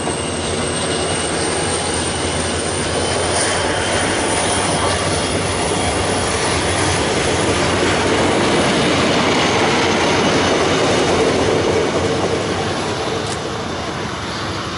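Diesel-hauled passenger train pulling out of a station, its coaches rolling past close by with a steady rumble of wheels on rail and a thin high whine, growing a little quieter near the end as the last coach moves away.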